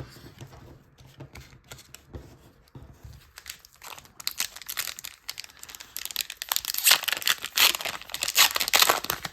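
Foil Pokémon booster pack wrapper crinkling and tearing as it is opened by hand, faint handling at first, then loud crackling from about four seconds in.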